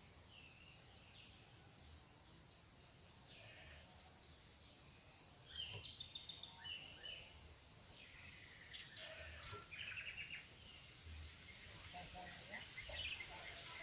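White-rumped shama singing faintly, a varied run of short whistles and chirps with canary-like phrases woven in, starting about three seconds in.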